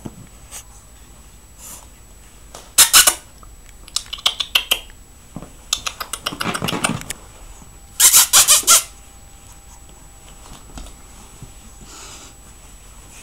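Puppies scuffling and playing in a fabric dog bag: a few short, loud scratchy bursts, strongest about three seconds and eight seconds in, with quieter clicking and rustling between.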